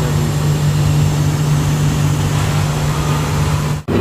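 Steady low machine hum of coin-operated laundromat washers running. It cuts out for an instant near the end and comes back at a slightly different pitch.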